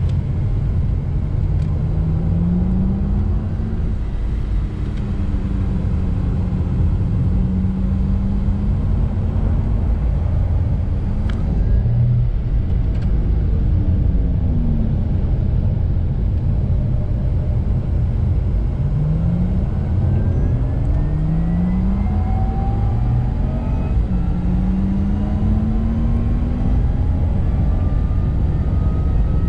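Porsche Taycan electric car heard from inside the cabin at speed. Steady low road and tyre rumble runs under an electric whine that climbs in pitch each time the car accelerates, several times over. Higher rising whines join in the second half.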